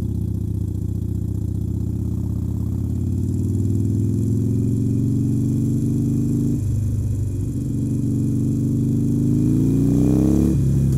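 Harley-Davidson Sportster Forty-Eight's air-cooled V-twin running steadily, then pulling away and accelerating through the gears. The pitch rises, drops off sharply at a shift about six and a half seconds in, then rises again and drops at a second shift near the end.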